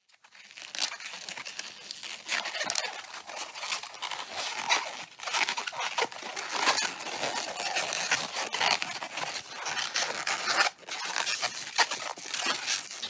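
An inflated 260Q latex modelling balloon being squeezed and worked between the hands: a continuous run of rubbery rubbing, creaking and crackling with many short scratchy strokes and a brief break about eleven seconds in. The balloon is being pressed soft before it is twisted.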